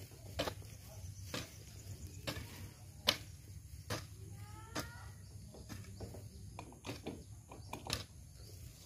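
Irregular knocks and scrapes of a garden tool working loose soil and compost while backfilling a planting hole, one sharp strike every second or so.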